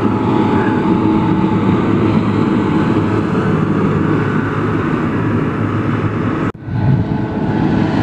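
Diesel engine and hydraulics of a John Deere 437E log loader running steadily as it works its boom and grapple. The sound drops out for an instant about six and a half seconds in.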